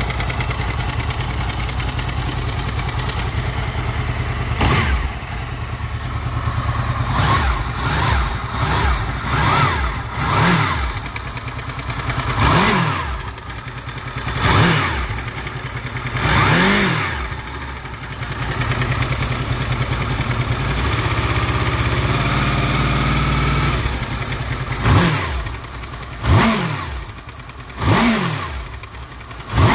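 Honda VFR800 VTEC's V4 engine idling, then revved in a string of short throttle blips, held at a steady higher speed for a few seconds around the middle, then blipped again near the end. It is run to bring out a warm metallic knock, mostly from the front cylinders, which comes and goes.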